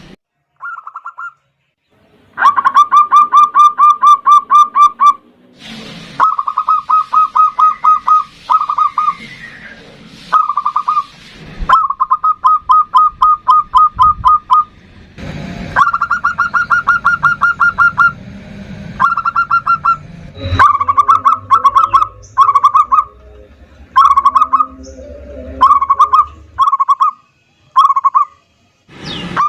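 Zebra dove (perkutut) singing: repeated bursts of fast, rattling coos at one steady pitch, each burst lasting one to three seconds, with short pauses between.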